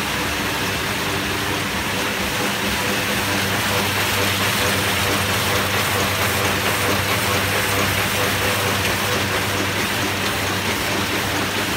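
Muller Martini Bravo Plus saddle stitcher running, its feeders and gathering line carrying printed sheets: a steady, dense mechanical clatter over a low hum.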